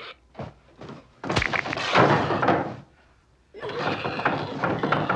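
Horror-film sound effects of a sledgehammer blow: one hard, heavy thump about a second and a half in, followed by a rattling scuffle. After a short quiet gap, a dense run of clattering noise starts.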